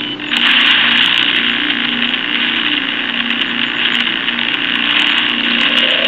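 Spirit box app playing a steady rush of radio-sweep static, with a wavering low hum under it and no words coming through.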